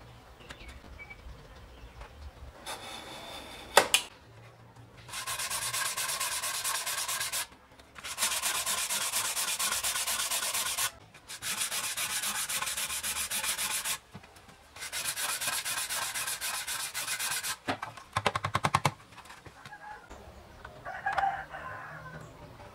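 Sandpaper rubbed along the side of a wooden model boat hull in four long passes of quick strokes, each about three seconds, with short pauses between. A sharp click comes a few seconds before the sanding, and a quick rattle of taps follows it near the end.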